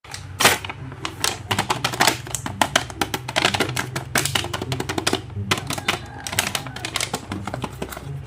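Background music with a low bass line, overlaid by rapid, irregular clicking and tapping.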